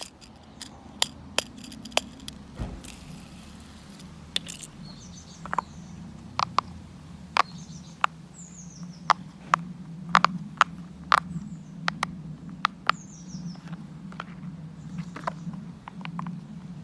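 Plastic fidget toys being handled, giving sharp, irregular clicks and clacks, with a few faint, short high squeaks in between, over a steady low hum.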